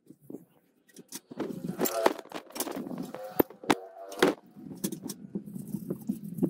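A cloth wiping a glossy black plastic computer-case part by hand. The rubbing brings short squeaks and clicks as the part is moved and knocked on the table, starting about a second in.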